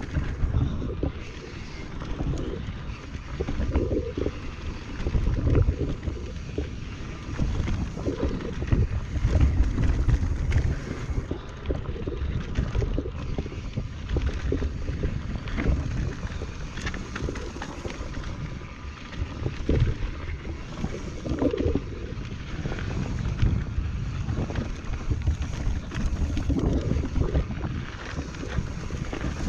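Wind buffeting a chest-mounted action camera's microphone as a Transition Patrol Carbon mountain bike rides down a dirt trail. Underneath are uneven tyre rumble and frequent knocks and rattles from the bike over rough ground.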